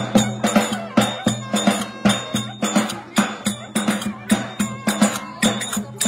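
Lively music with a steady low drone and a driving percussive beat of about three strokes a second.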